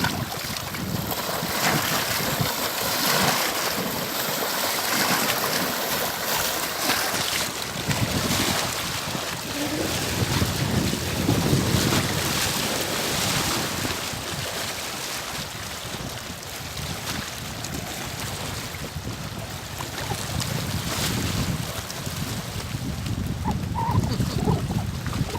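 Wind gusting over the microphone with lake water lapping: a steady rushing noise that swells and eases, with low rumbling surges.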